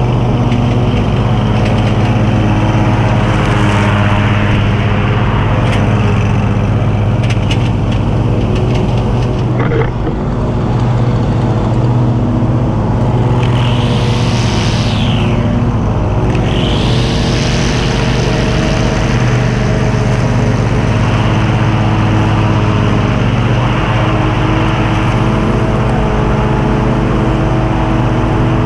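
A John Deere QuikTrak stand-on mower and a Stihl string trimmer running together in a loud, steady engine drone. About halfway through, a high whine falls and then rises again.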